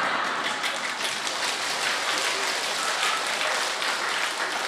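An audience applauding, many people clapping at once in a steady, even spread of claps.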